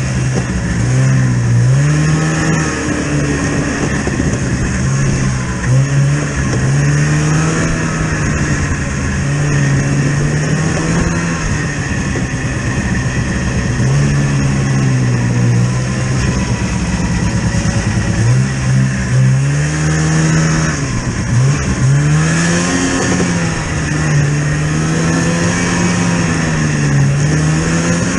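A vehicle engine running under a changing throttle. Its pitch climbs and drops over and over, several times in the stretch.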